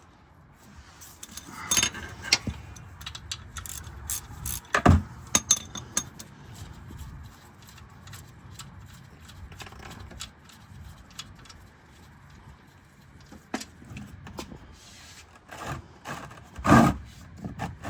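Scattered clinks, knocks and scrapes of metal tools being handled during an oil change, with a loud knock about five seconds in and another near the end.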